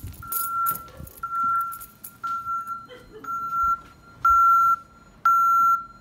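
ADT alarm keypad sounding its entry-delay warning: beeps of one steady pitch, about one a second, each roughly half a second long, louder over the last two. The beeping warns that the armed system must be disarmed before the alarm goes off.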